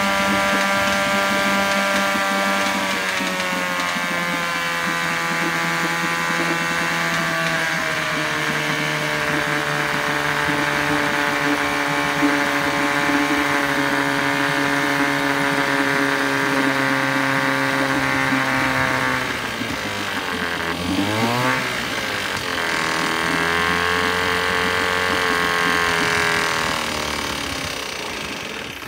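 1972 Johnson 6 hp two-stroke twin outboard running with its lower unit in a barrel of water. Its speed drops a few seconds in, dips sharply and picks back up about two-thirds of the way through, and it cuts out near the end. The owner takes its uneven running for a carburetor that needs cleaning.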